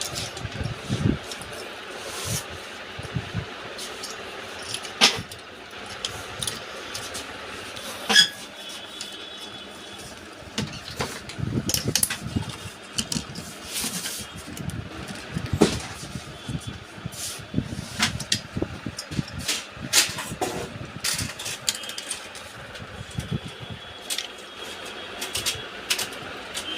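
Scattered clicks and knocks of a stock Intel CPU cooler being handled and fitted onto a motherboard, over a steady background hiss.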